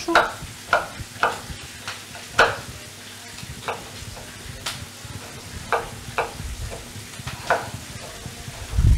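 Kitchen knife chopping red bell pepper on a wooden cutting board: short, uneven knocks, about one or two a second, over the steady sizzle of onion and pork frying in a pan. A low thud comes at the very end.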